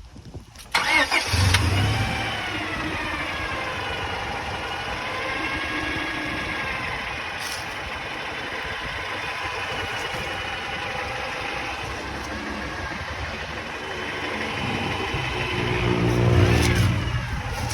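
Honda Prelude engine starting just under a second in, then running at idle with a knocking noise that the owner suspects is piston slap or valve noise and thinks too quiet to be rod knock. The engine revs up briefly near the end.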